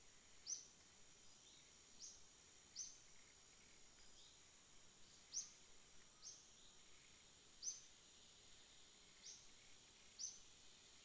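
Faint forest ambience: short high chirps of small birds every second or two, falling in pitch, over a steady high insect drone.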